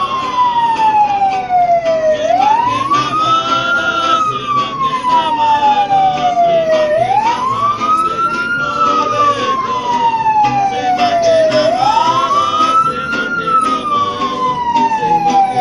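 Vehicle siren wailing in a repeating cycle: a quick rise in pitch, then a slower fall, about every four and a half seconds, three times over.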